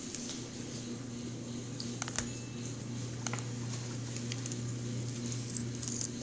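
Scattered light clicks and crinkles of paper and cardboard fast-food packaging being handled while fries are picked up and dipped, over a steady low hum.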